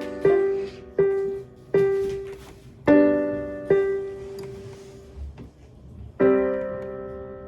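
Electronic keyboard with a piano sound, played slowly note by note in a halting beginner's melody. About one note or chord a second, then a long pause before a chord near the end.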